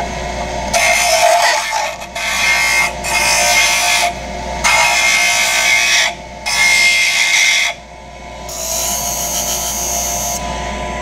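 Delta 23-580 5-inch bench grinder running with a steady hum while the edge of a high-speed steel slitting saw blade is pressed to the wheel for a spark test. The blade is ground in about five passes of one to two seconds each, with short gaps between them; the last pass, near the end, is higher and lighter.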